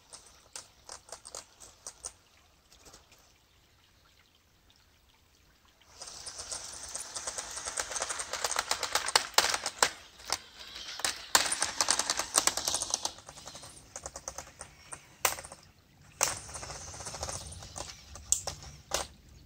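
LEGO Technic tracked RC vehicle, driven by two LEGO XL motors, with its plastic tracks and drivetrain clattering in a fast, dense run of clicks as it crawls through a shallow stream. The clattering starts about six seconds in, breaks off briefly and comes back near the end. The left-side transmission is nearly broken, its small rear drivetrain parts failing under the motors' torque.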